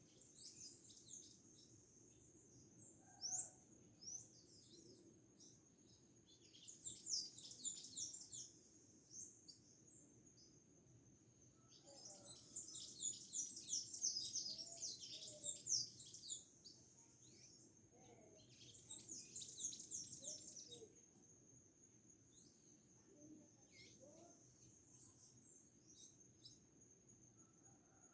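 Small birds singing in rapid, high twittering phrases, about five outbursts of a few seconds each with short pauses between, over a faint steady high-pitched whine.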